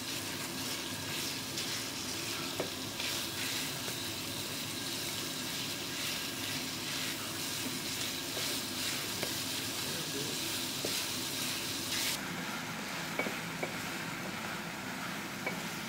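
Minced meat sizzling as it fries in a nonstick pan, stirred and pushed around with a wooden spatula. The high hiss of the sizzle drops suddenly about twelve seconds in.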